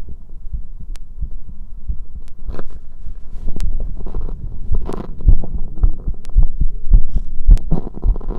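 Human heartbeat picked up at the chest: quick, regular low thumps, about two a second. From about two and a half seconds in, louder scraping and rustling noises are heard over it.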